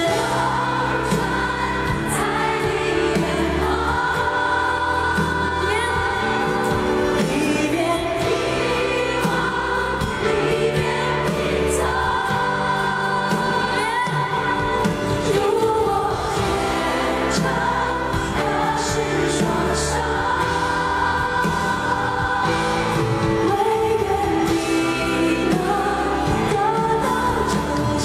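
Live concert recording of a male pop singer performing a slow ballad with band accompaniment, with a large audience singing along in chorus.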